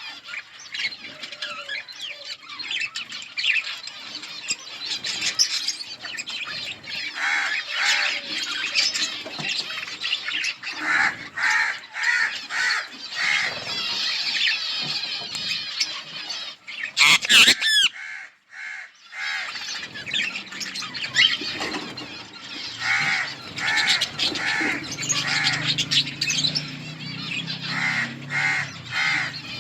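A colony of budgerigars chirping and chattering all together, with runs of quick repeated chirps now and then. A low steady hum joins in during the second half.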